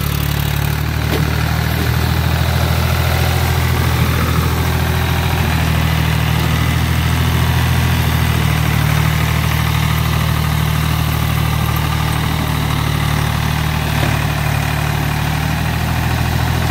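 Ford 3000 tractor's three-cylinder engine running steadily at a low, even speed as the loader tractor moves about.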